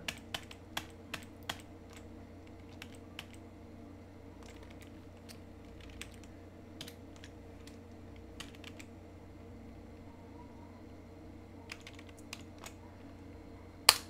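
Computer keyboard keystrokes: a quick run of key clicks at the start, then scattered single clicks, with one sharper click just before the end, over a steady low hum.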